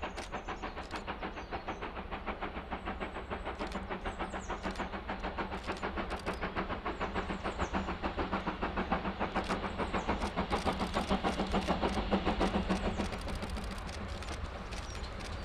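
GWR Manor class 4-6-0 steam locomotive No. 7812 Erlestoke Manor working hard towards the microphone with a goods train: a fast, regular chuffing from the chimney that grows steadily louder, then gives way to a steadier rushing sound about thirteen seconds in. Faint bird chirps in the first few seconds.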